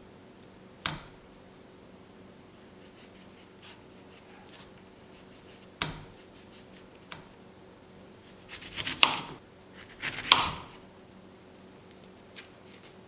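Espresso-making tools being handled: a sharp knock about a second in and another about six seconds in, then two short bursts of scraping and tapping near the end. A faint steady hum runs underneath.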